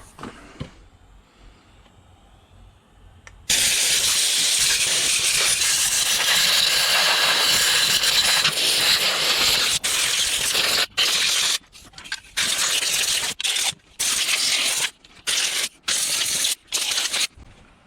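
Compressed-air blowgun hissing as it blows dirt off a chainsaw. After a few quiet seconds comes one long continuous blast, then a quick series of short blasts as the trigger is pulsed on and off.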